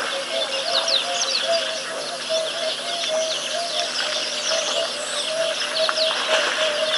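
Outdoor bush ambience at a waterhole: many birds chirping with quick falling notes. Underneath runs a steady series of short low notes, alternating between two pitches about three times a second, over a constant hiss.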